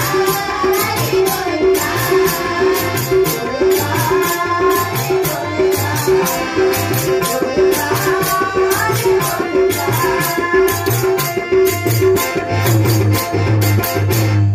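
Harmonium and tabla playing a Telugu devotional folk song: a bending melody over a steady, even tabla rhythm of ringing high strokes and deep bass strokes.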